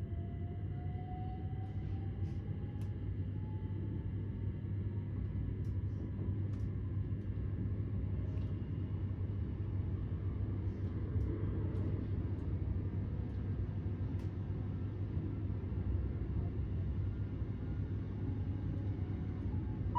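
Class 387 Electrostar electric train heard from inside the carriage: a steady low rumble of running on the track, with a thin electric whine rising in pitch over the first few seconds. A few light ticks come and go.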